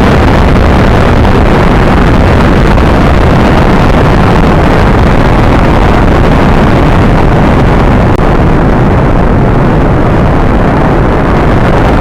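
Space rocket engine sound effect: a loud, steady rumbling roar with dense low rumble. The upper hiss thins out over the last few seconds.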